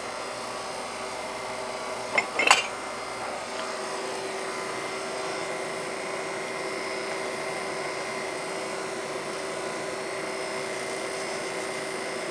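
Steady machine hum with a few fixed pitches. About two seconds in come two sharp clicks from handling the breadcrumb canister.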